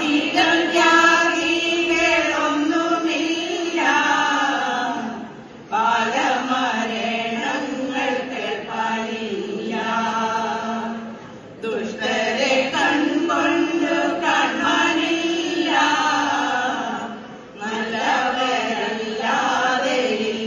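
A women's choir singing a Malayalam Onam song together, in sung phrases of about six seconds, each followed by a brief break for breath.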